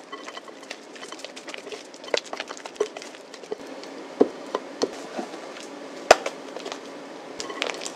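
Silicone spatula stirring and scraping a thick sweet potato mousse in a glass bowl, with irregular soft squelches and sharp knocks of spatula and bowl against glass; the sharpest knock comes about six seconds in, as meringue is tipped in from a second glass bowl.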